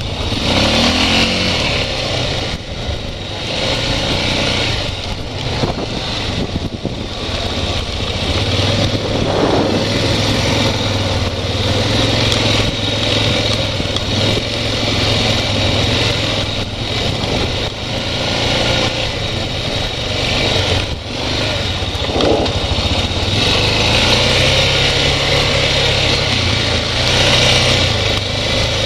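Off-road ATV engine running throughout, its speed rising and falling every few seconds as the throttle is worked.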